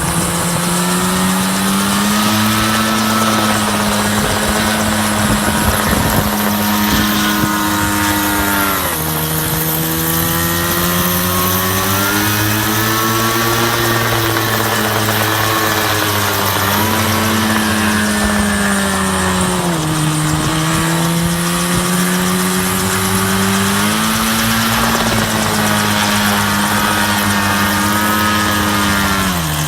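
Small grass-cutter engine of a homemade helicopter running loudly, its speed sagging and rising again every few seconds.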